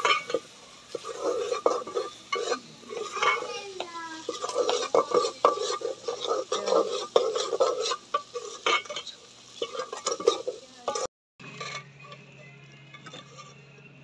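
A steel ladle stirring and scraping thick onion masala in a metal cooking pot, with repeated clinks against the pot's sides and a light sizzle underneath. The stirring cuts off abruptly about three-quarters of the way through, leaving a quieter steady low hum.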